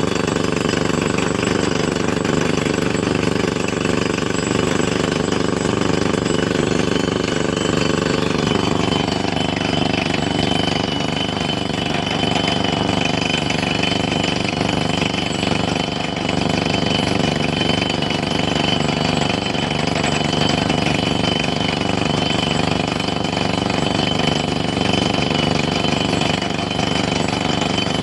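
Excavator at work with a fast, steady hammering rattle. A tone in the machine's sound drops in pitch about nine seconds in.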